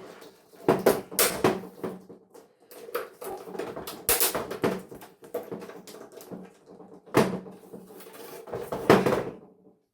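Irregular knocks and clattering of plastic and metal television parts being handled and pulled apart, with sharper knocks about a second in, around four seconds, around seven seconds and near the end.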